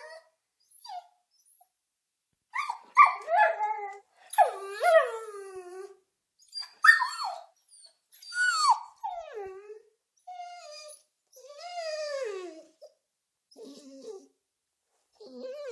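Dog whimpering: a series of high, whining cries that slide downward and waver in pitch, with short silences between them.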